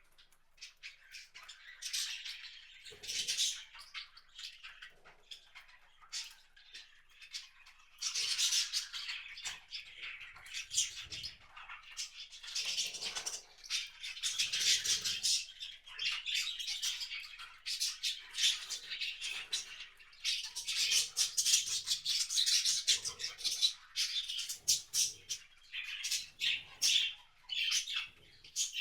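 Small wild birds at a feeder chirping and calling almost without pause, with many short clicks and taps and a few soft low thumps mixed in.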